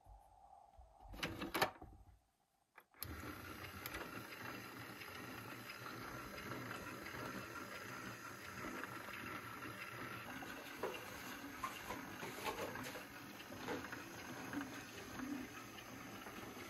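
A few plastic knocks and clicks about a second in, then a steady running hum of a battery toy washing machine's small motor turning its drum, with water inside, starting about three seconds in.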